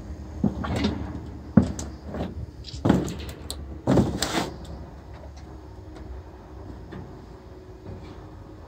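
Several sharp metallic knocks and short clattering rattles from the steel barbecue and its grates in the first half, the longest about three and four seconds in. After that only a steady low hum remains.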